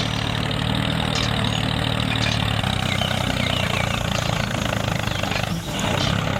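Steady engine-like running sound of a motor idling, even and continuous with a low hum, dipping briefly near the end.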